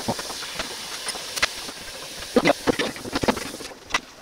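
A steady hiss under scattered knocks and taps at a plastic cutting board, with a quick run of them a little past halfway.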